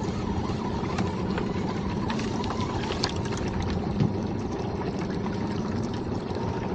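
Sea water sloshing and lapping against the hull of a small fishing boat: a steady wash with small splashes and ticks scattered through it.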